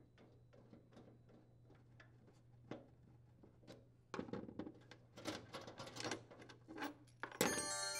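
Faint metallic ticking and clicking of a screwdriver turning a microwave's mounting bolt in a wooden cabinet floor. The clicking and rattling grow louder about halfway through as the loosened bolt is spun out by hand. Near the end a ringing electronic chime tone starts.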